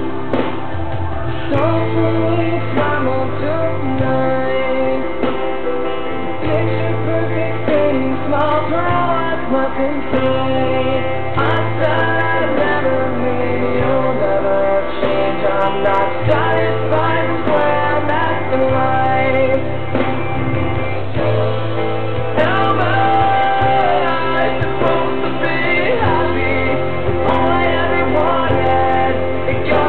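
A song with a singing voice over guitar and a bass line.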